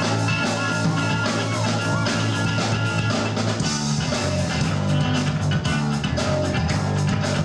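Rock band playing live: electric guitars, bass and drum kit, with a steady drum beat.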